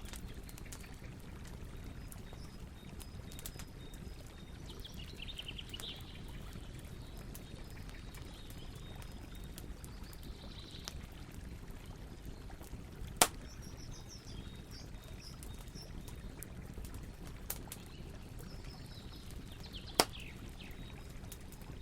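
Campfire burning with a steady low rush and frequent small crackles, and two loud sharp pops from the burning wood, one about halfway through and one near the end. Faint bird chirps come and go behind it.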